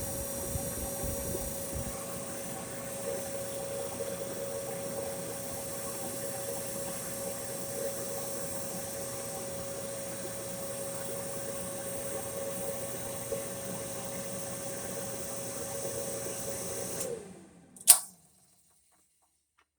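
GE electric dryer running with its drum motor and blower fan humming steadily, a constant whine over it, while the heating element draws no current. About seventeen seconds in the motor shuts off and winds down in falling pitch, followed by a single sharp knock.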